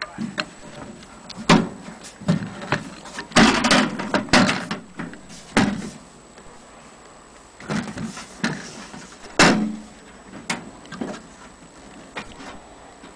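Irregular knocks and clatter from a vintage metal-cased tube radio receiver being picked up, turned and set down by hand, with a dense run of bumps about four seconds in and single sharp knocks after it.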